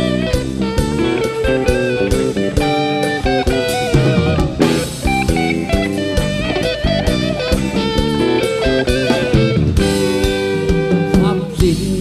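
Live rock band playing an instrumental passage: electric guitar over drum kit and percussion, with bending guitar notes and a steady beat.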